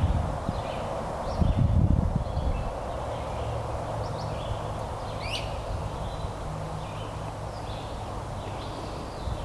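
Birds chirping in short scattered calls over a steady low hum and rumble, with a louder low thump about a second and a half in.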